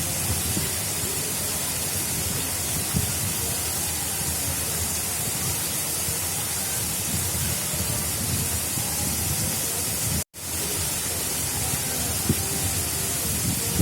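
Water flowing steadily along an artificial river channel: a constant rushing. The sound cuts out for a split second about ten seconds in, then resumes.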